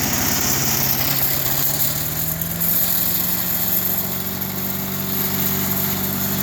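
Craftsman 4 HP wood chipper/shredder's small engine running steadily, its pitch rising slightly about two seconds in and then holding.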